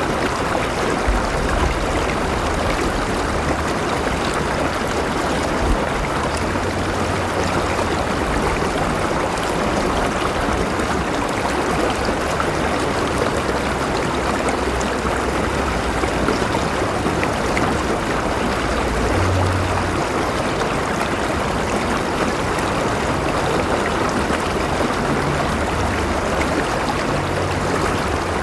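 River water flowing and rushing over rocks in a steady wash, with a low rumble underneath.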